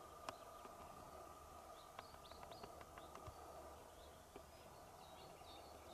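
Near silence with faint, short, high bird chirps scattered throughout, and a few faint clicks about two to three seconds in.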